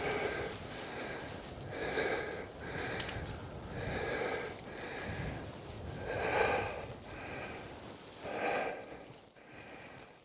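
A person breathing hard and fast, with about eight heavy breaths at roughly one a second.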